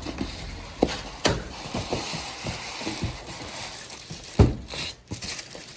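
Cardboard box and foam packing knocking, creaking and scraping as a large flat-screen TV is tilted and worked out of its box. Irregular clicks and knocks, with the loudest thump about four and a half seconds in.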